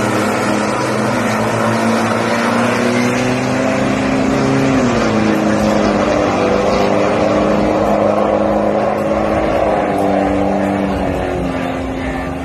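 Turbodiesel SUVs, a Toyota Fortuner and an Isuzu MU-X, at full throttle down the drag strip. Their engine note climbs steadily and drops at a gear change about five seconds in.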